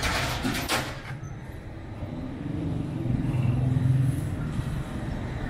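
A motor vehicle's engine running close by, a low steady hum that swells to its loudest about three to four seconds in. A few brief scuffs near the start.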